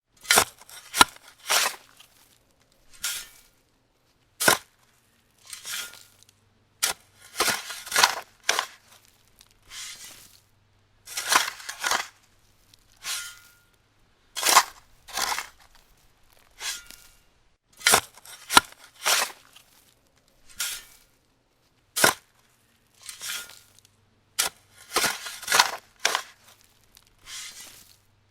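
Shovel digging into dirt: an uneven run of short gritty scrapes and crunches as the blade cuts in, about one every second or two. A few begin with a sharp click.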